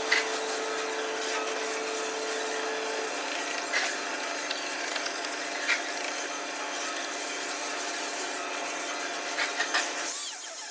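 Steady rubbing on wood, typical of sanding down a repaired crack, with a few light clicks; it stops about ten seconds in.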